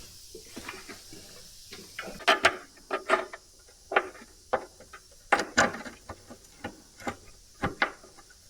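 A run of sharp, irregular clicks and knocks, roughly two a second, starting about two seconds in, from parts or tools being handled during work on the car.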